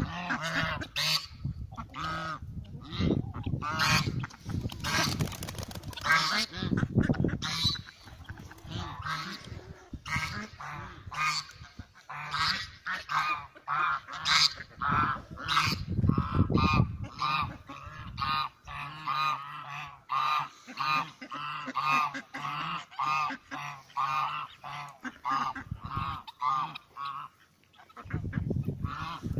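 Domestic geese honking over and over, a rapid run of short calls at about two a second through the second half, with a brief lull near the end.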